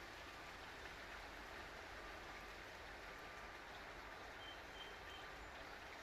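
Steady rush of flowing river water, faint and even.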